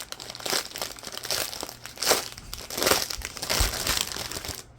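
Small plastic bags of diamond painting drills crinkling in irregular bursts as they are handled and sorted.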